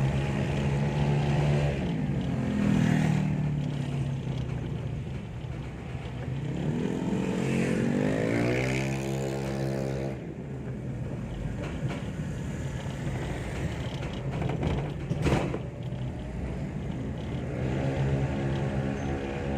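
A vehicle engine running under way, its pitch dropping, then climbing as it accelerates, and climbing again near the end. A single sharp click or knock comes about fifteen seconds in.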